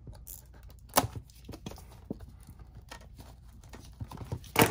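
Handling of a cardboard blaster box of trading cards: scattered small rustles and ticks, with two sharp knocks, about a second in and near the end.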